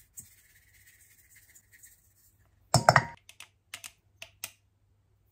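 Salt trickling faintly from a plastic measuring cup onto diced pork in a steel bowl, then a short clatter of kitchen utensils about halfway through, followed by a few light clicks as spice is tapped from a small jar into a measuring spoon.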